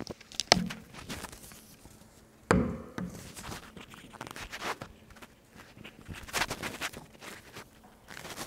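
Handheld microphone handling noise: a sharp knock about half a second in and a heavier thump about two and a half seconds in, as the mic is passed over and gripped. Scattered rustling follows as paper pages are turned.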